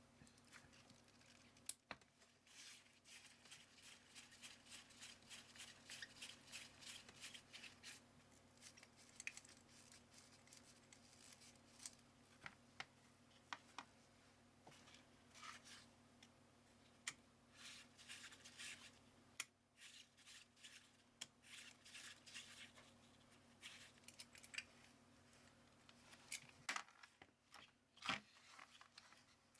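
Faint, irregular scraping, rubbing and clicking of hand work on small scooter carburettor parts, with quick runs of scratchy strokes and a few sharper clicks, about two seconds in and near the end.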